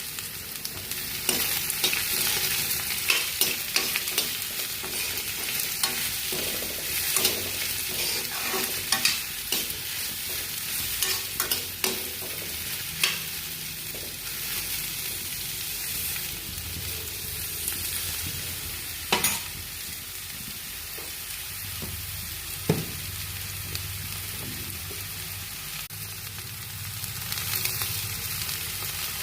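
Food sizzling as it fries in a pan, a steady hiss, while a utensil stirs it with frequent sharp clicks and scrapes against the pan, mostly in the first half.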